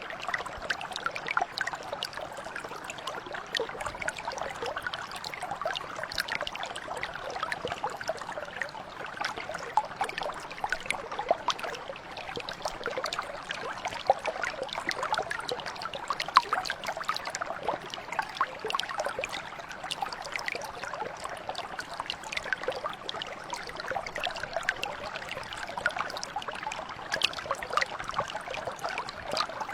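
A small brook or stream flowing steadily, a continuous babble of water with many small quick splashes and gurgles.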